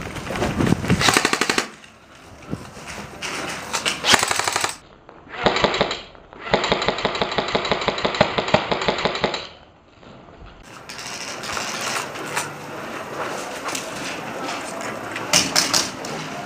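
Airsoft electric guns firing rapid full-auto bursts. Several short bursts come before and after one long burst of about three seconds in the middle.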